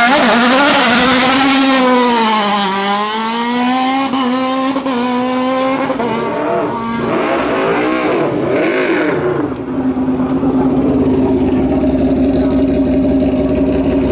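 Hillclimb race car engine at hard throttle, its note climbing as it arrives, dipping and climbing again through the next few seconds. About halfway through the note rises and falls unevenly, then settles into a steady drone.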